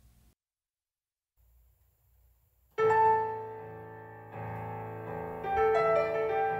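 Near silence for almost three seconds, then an electronic keyboard playing in a piano voice starts suddenly: slow, sustained chords, a new one every second or so.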